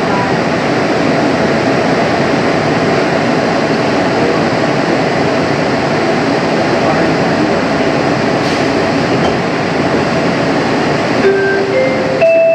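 Steady rumble and hum inside a Bombardier Innovia APM 100 automated people-mover car, with a faint steady whine running through it. A few short tones sound near the end.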